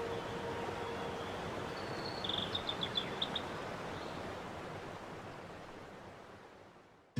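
Steady rushing outdoor noise with a bird giving a quick run of high chirps about two to three seconds in; the noise fades out near the end.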